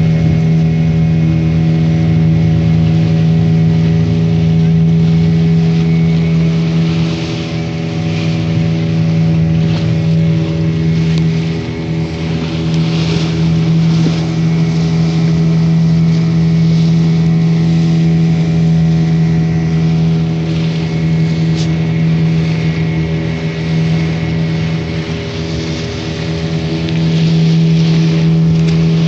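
A passenger boat's engine running steadily under way, a constant drone, with the rush of water and wind over it.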